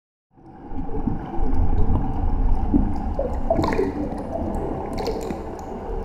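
Underwater ambience fading in during the first second: a steady deep rumble with gurgling water and scattered short chirps and clicks.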